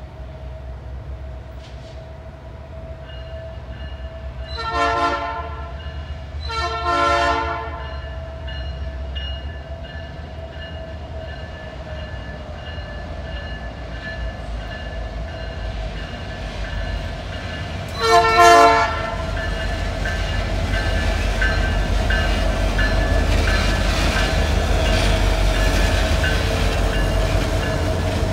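Kansas City Southern de México diesel locomotive with an EMD 710 ECO repower, sounding its air horn in two short blasts about five and seven seconds in and a third short blast about 18 seconds in, as it approaches. A steady ringing tone runs underneath, and the low engine and rail rumble grows louder toward the end as the lead unit passes close by.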